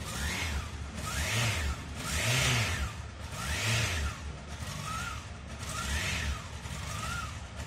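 Honda X4's inline-four engine revved repeatedly through its twin exhausts, about six throttle blips rising and falling, the loudest around two and a half seconds in.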